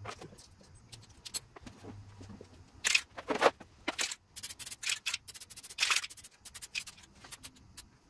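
Aerosol can of penetrating oil sprayed onto stuck bolts on a scooter's front fork to free them. It hisses in many short bursts starting about three seconds in, after a few light clicks.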